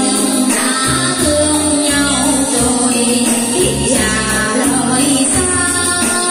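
A woman singing a Vietnamese song over a backing track with a pulsing bass line.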